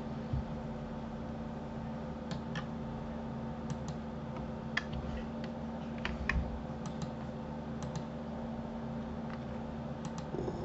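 Irregular clicks from a computer keyboard and mouse, about one or two a second, over a steady low hum.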